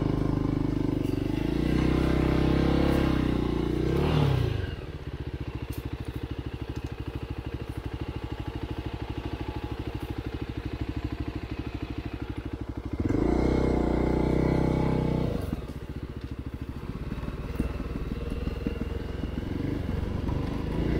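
Enduro motorcycle engine under way. It pulls loud with rising pitch for the first few seconds, then drops to low, steady revs with even firing pulses. It pulls loud again for a couple of seconds about two-thirds of the way through, then eases back.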